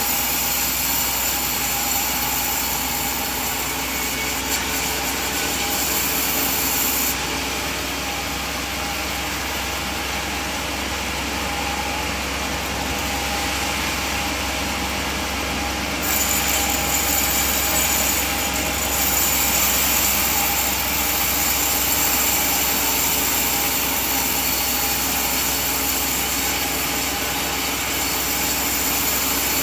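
Sawmill saw running and cutting through a coconut log, a steady machine noise with a high hiss. The hiss drops away and the sound gets slightly quieter about seven seconds in, then comes back about sixteen seconds in.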